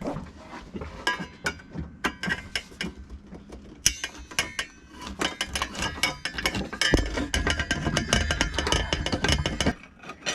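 Rapid metallic clicks and clinks of hand-tool work on a sailboat's steering pedestal: a screwdriver working screws and small metal parts being handled. The clicking gets busier about halfway through.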